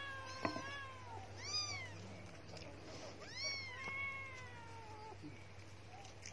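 A cat meowing three times: a drawn-out meow, a short one, then another drawn-out meow, each rising and then falling in pitch. A sharp click sounds about half a second in.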